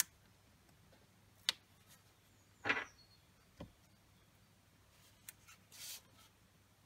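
Small handling sounds of paper crafting with tweezers: a sharp click, a short paper rustle, a soft low knock, then another click and brief rustle, with quiet room tone between.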